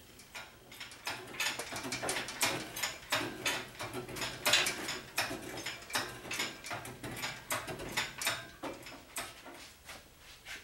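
Irregular metallic clicks and clanks of shop work as the sheet-metal hood of a Ford 8N tractor is taken off and raised on an engine hoist.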